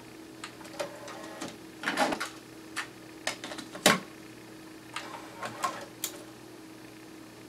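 Sony TC-K850ES cassette deck being loaded: the eject button clicks, the cassette door opens, a cassette is rattled into place and the door is pushed shut, giving a string of plastic clicks and clunks with the loudest clunk about four seconds in. A faint steady hum runs underneath.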